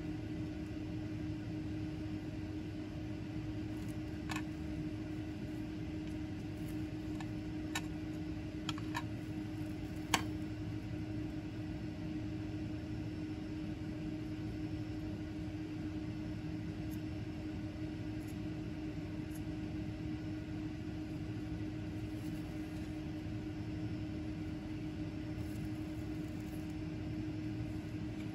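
Steady machine hum with a low steady tone, like room ventilation or a fan. A few light clicks come in the first half as plastic petri dishes and tweezers are handled.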